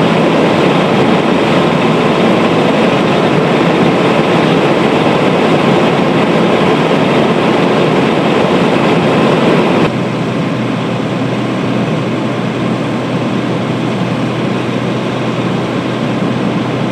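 Fire engines' engines running at idle, a loud steady drone with a low hum. The level drops suddenly about ten seconds in.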